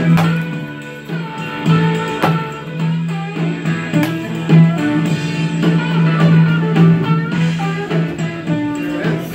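Background music with guitar: a held low note under a run of plucked notes.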